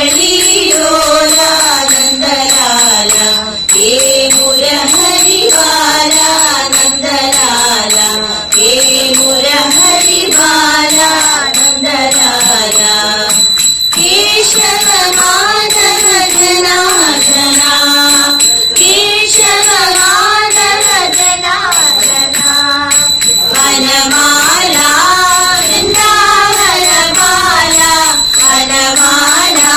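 A woman leading a group of girls in singing a Hindu devotional bhajan, her voice amplified by a microphone, with the group singing along.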